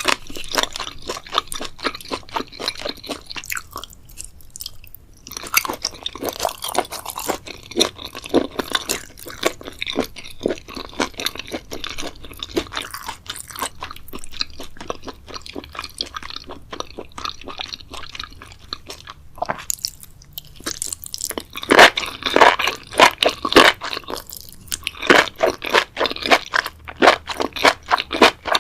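A person biting and chewing crunchy seaweed, with dense rapid crunching, two brief pauses, and the loudest crunches near the end.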